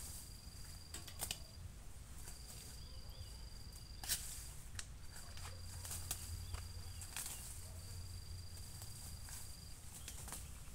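Weeds being pulled up by hand, with rustling stems and leaves and sharp snaps, the loudest about four seconds in. Over it, a high, steady call about two seconds long repeats four times.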